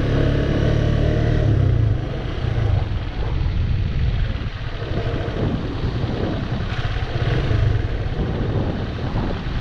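Motorcycle engine running while riding along, heard from the rider's position with wind and road rumble on the microphone. The engine note holds steady for about two seconds, then eases off and the sound turns mostly to low rumble.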